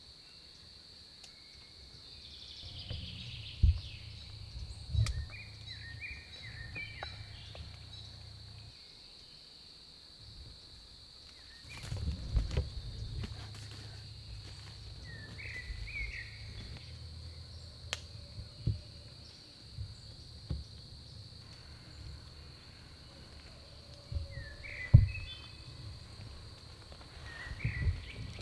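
Woodland ambience: a steady high-pitched insect drone, with short bird chirps now and then. Low rumbling and a few sharp knocks run underneath, the loudest knock near the end.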